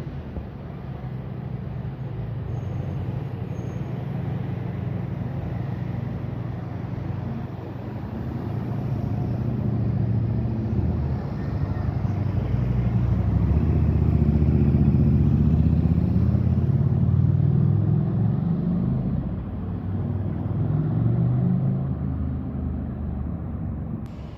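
A double-decker bus's diesel engine running as the bus pulls away and turns past close by. The engine note builds and is loudest about halfway through, then eases off, with road traffic around it.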